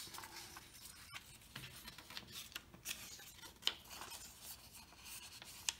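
Paper model pieces being folded and creased by hand: light rustling and crinkling with scattered small clicks.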